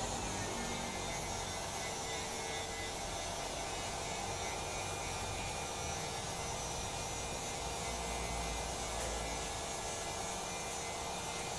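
A steady electrical hum with faint high whining tones, unchanging throughout.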